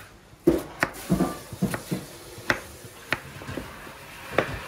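Kitchen knife cutting food on a cutting board: about eight sharp, irregular knocks of the blade against the board.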